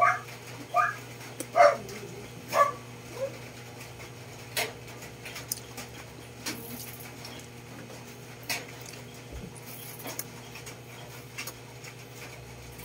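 A dog whimpering and yipping in about five short, high calls during the first three seconds, then a few sharp clicks and smacks of eating by hand, over a steady low hum.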